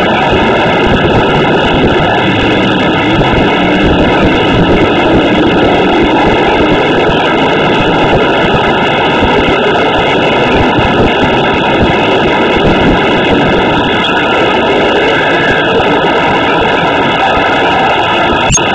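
Monster truck's supercharged V8 engine running hard and loud without a break, recorded through a cellphone microphone.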